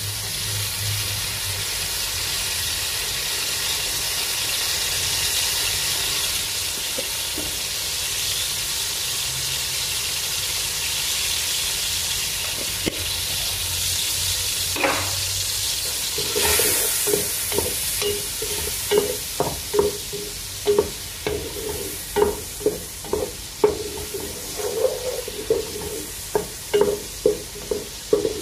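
Sliced mushrooms sizzling in hot oil in a pot, with a steady frying hiss. From a little past halfway, a wooden spatula stirs and scrapes the pan in quick repeated strokes.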